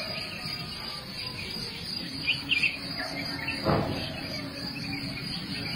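Insects chirping steadily, with a few short bird chirps about two seconds in and a brief knock a little past the middle.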